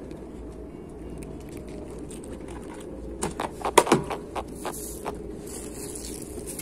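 A quick run of sharp knocks and clatters about three to four seconds in, over a steady low hum.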